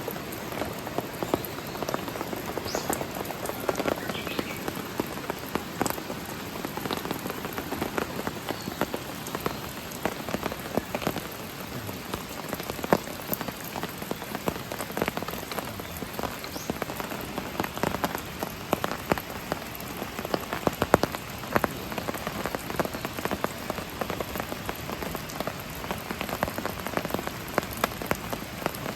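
Steady rain falling, with many separate drop hits ticking sharply through it.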